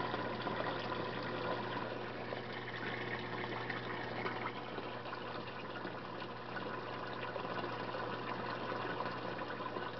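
Pumped return water pouring into a fish tank through a venturi, a steady rush of water heavily charged with air bubbles, with a low steady hum underneath. The venturi sucks in air, aerating the water as it returns.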